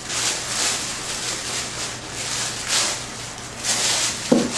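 Thin plastic shopping bag rustling and crinkling in repeated swells as it is opened and pulled over a canvas.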